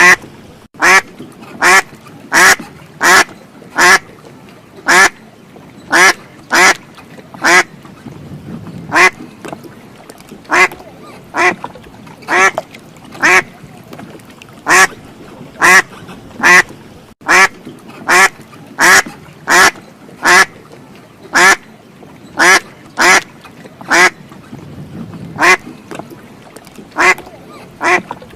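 Duck quacking loudly over and over: short calls, a little more than one a second, now and then two in quick succession.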